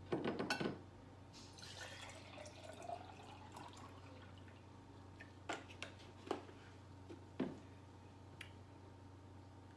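A drink being poured into a container, its pitch rising as it fills, after a quick clatter of clinks at the start. A few separate knocks and clinks follow.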